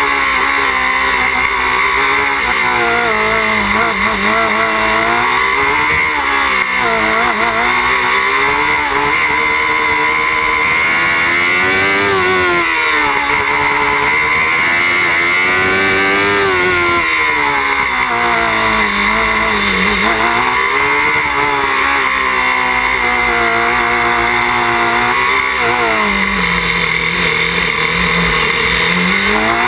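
Engine of an open-wheel single-seater race car heard from on board, its revs climbing and dropping every few seconds as the car accelerates and slows through a run of corners. Near the end the revs hold steady and lower for a few seconds.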